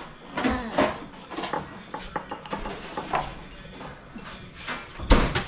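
Kitchen clatter around glass canning jars being filled with fish: chopsticks stirring and tapping inside the jars, and jars handled on the counter, with many short knocks and clicks and one loud knock about five seconds in.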